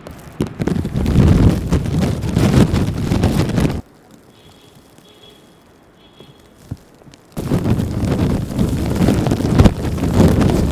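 Strong wind buffeting the microphone in two loud stretches of about three seconds each, with a quieter lull between them; each stretch starts and stops abruptly.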